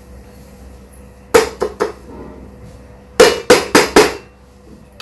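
A stainless steel mixer-grinder jar knocked against a steel plate to shake out freshly ground spice powder: three quick metallic knocks about a second and a half in, then four more about three seconds in.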